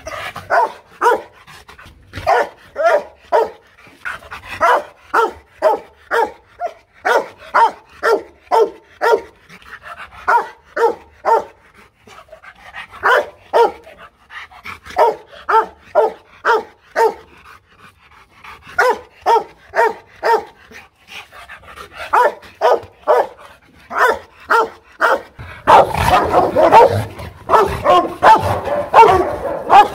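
Rottweiler barking angrily and lunging on its leash, about two barks a second in runs with short pauses. In the last few seconds the barking gets louder and denser.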